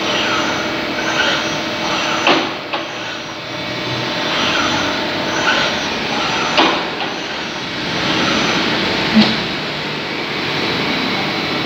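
Makino GF6 CNC milling machine running a tapping cycle in low gear: the spindle's high whine rises and falls over and over as it speeds up and reverses, over the machine's steady running noise. There are a few short knocks along the way.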